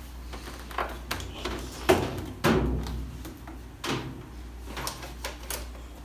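Knocks and thuds of a top-load washing machine's cabinet being handled and set back upright, the loudest about two seconds in and another heavy one half a second later.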